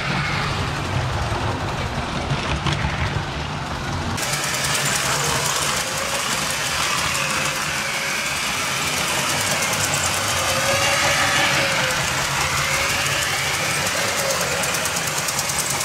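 LEGO 7740 Inter-City 12-volt electric locomotive running on plastic track: a steady motor hum with the whir of wheels on rails. About four seconds in the sound changes suddenly, and after that the running noise is brighter, with a pitch that slowly rises and falls.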